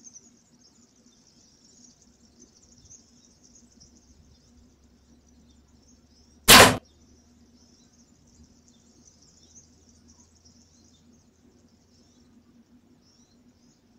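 A bow shot: one sharp, loud thwack as the arrow is loosed and strikes, about six and a half seconds in, over a faint steady high-pitched hiss.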